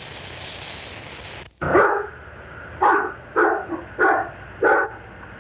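A steady hiss that cuts off about a second and a half in, then a dog barks five times in quick succession.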